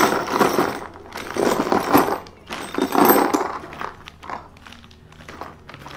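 A clear plastic hardware bag crinkling as it is shaken out, with screws, wooden dowels and metal and plastic fittings spilling and clinking onto cardboard. Three bursts of rustling come in the first three and a half seconds, then it goes quieter with a few scattered clicks.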